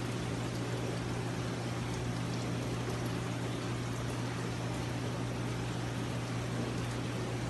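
Aquarium pump running with a steady low hum, over a constant wash of trickling water.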